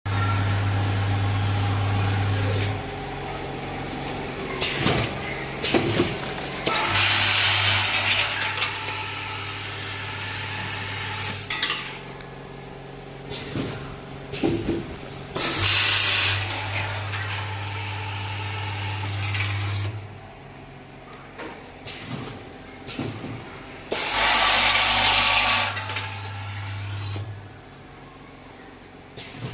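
Automatic screw packing machine running: its vibratory bowl feeder hums in on-off cycles of a few seconds as it feeds and counts screws, with loud bursts of hiss over three of the hum cycles. Sharp clicks and knocks from the bag-sealing and cutting mechanism fall between the cycles.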